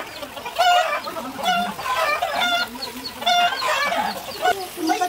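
Chicken clucking, a short call repeated about once a second.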